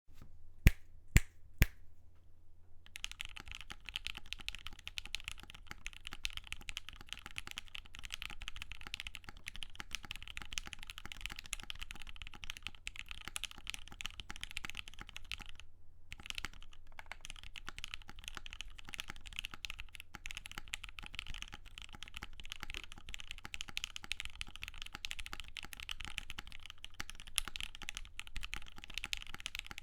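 Fast continuous typing on a custom O-ring-mounted 60% mechanical keyboard with lubed, long-spring Gateron Ink Black linear switches, a UHMWPE plate and GMK keycaps: a dense stream of soft key strokes. Three sharper, louder clicks come first, and the typing stops briefly about halfway through before picking up again.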